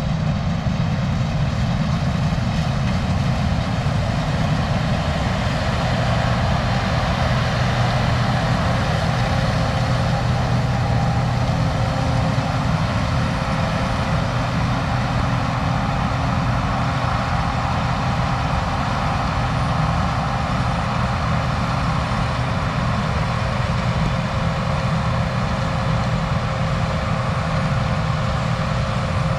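Rotary combine harvester running steadily while harvesting soybeans: a constant engine and threshing drone with a few steady hum tones, unchanging throughout.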